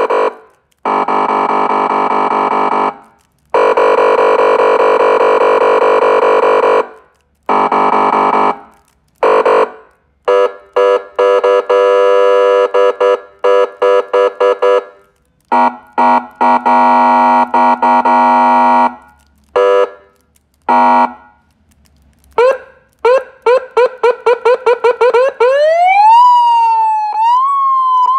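SA5200 16-tone electronic police siren running through its tones: steady, buzzy horn-like blasts a few seconds long with short gaps, broken by bursts of quick chirps. Near the end comes a fast pulsing warble, then a tone sliding up and down.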